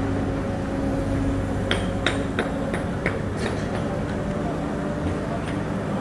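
Hidromek 102 S backhoe loader's diesel engine running steadily as the machine drives off. About two seconds in comes a quick run of about seven sharp metallic clinks, with a couple of fainter ones later.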